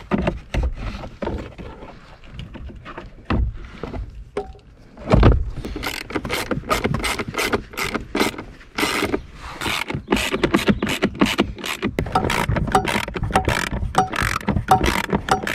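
Quarter-inch ratchet with an 8 mm socket clicking in quick repeated strokes as the bolts holding a blower motor are tightened. A few knocks of parts being handled come first, the loudest about five seconds in.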